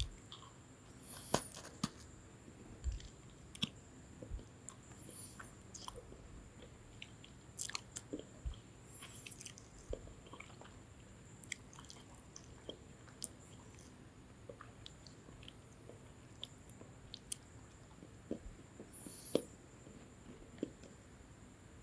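Close-miked chewing of a crunchy lemon cream sandwich biscuit: scattered crisp crackles and small crunches, with a few louder crunchy moments spread through.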